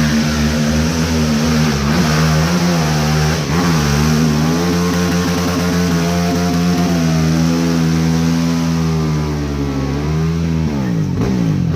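Racing ATV engine running hard at high revs, its pitch dipping briefly a couple of times, then dropping sharply near the end and climbing again as the throttle comes back on.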